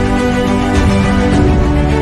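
Background music: held notes over a steady low beat.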